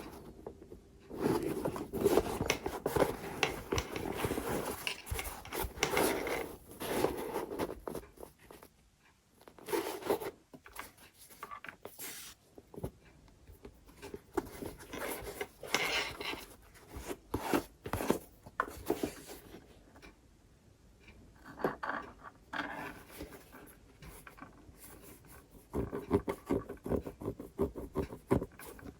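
Hands handling sneakers and their packaging: rubbing and scraping noises that come in stretches of a few seconds, with short pauses around the middle and again a little later.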